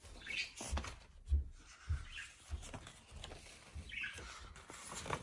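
Pages of a hardcover book being flipped through, with paper rustling and flapping, and several dull low thumps from the phone and book being handled, the loudest about a second in.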